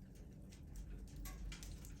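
Wood fire crackling: irregular small pops and snaps from burning logs over a low rumble of the flames.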